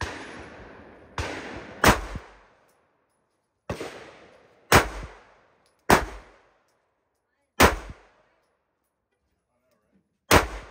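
Taurus G3c 9mm pistol being fired: about eight single shots at uneven intervals of roughly one to two and a half seconds, each with a short ringing tail. A few of the shots are softer than the rest.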